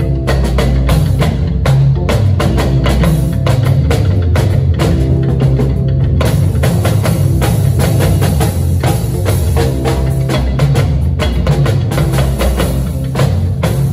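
Instrumental percussion music: a drum kit and Yoruba talking drums playing a steady, busy rhythm over sustained low notes.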